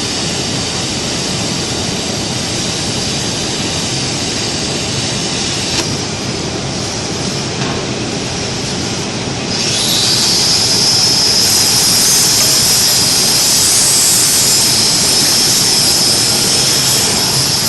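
Steady, loud workshop machinery noise. About halfway through, a high-pitched whine rises quickly and then holds steady, like a power tool spinning up, and the overall sound gets louder.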